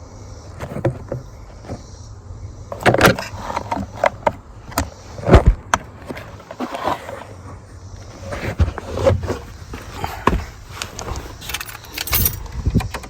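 Irregular clicks, clinks and knocks of hand work on a blower motor replacement: metal parts and tools being handled, with the loudest knock about five seconds in.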